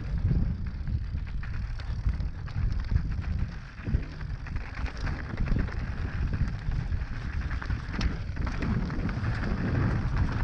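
Mountain bike being ridden over rough trail: a continuous low rumble of wind buffeting the microphone, with many small knocks and rattles from the tyres and bike over the ground.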